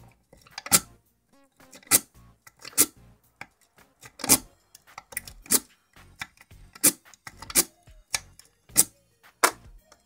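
Lock pick clicking against the pins and keyway of a 6-pin euro profile cylinder, with a tension wrench in the keyway. The sharp metallic clicks come at an uneven pace, roughly one a second.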